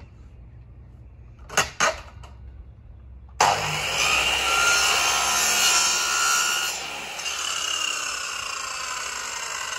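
Two sharp knocks, then an electric compound mitre saw starts suddenly about three and a half seconds in and cuts through wooden frame moulding, a loud whining saw noise that drops a little about halfway through and keeps running. The owner calls its blade blunt and buckled.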